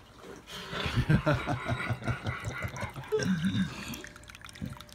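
A person laughing in quick repeated bursts, starting about a second in and dying away near the end, over the faint trickle of water from a small Buddha statue fountain.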